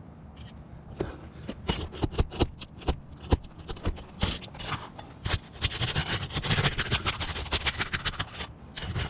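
Asphalt roof shingles being lifted and handled: irregular scraping and clicking starting about a second in, thickening into near-continuous scraping in the second half.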